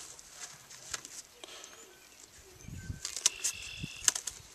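Sharp snipping clicks as the long flight feathers at a chicken's wing tip are clipped: a few cuts about three seconds in and another near the end, over rustling from handling the bird.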